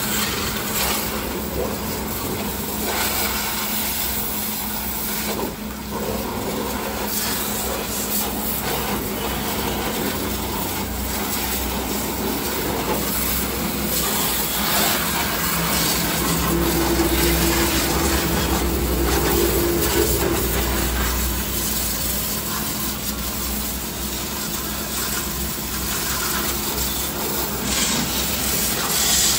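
Pressure-washer jet spraying water against a car's underbody, a steady hiss. A louder low hum swells for a few seconds in the middle.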